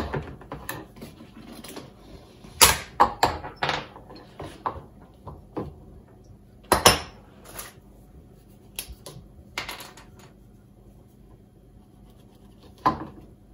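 Irregular clicks and knocks as white plastic conduit pipes and a marker pen are handled on a wooden worktop. The loudest knocks come about 3 s and 7 s in.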